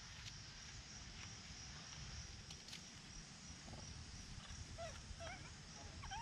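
Faint outdoor ambience: a steady high hiss over a low rumble, with a few faint, short animal chirps and squeaks about five seconds in and again near the end.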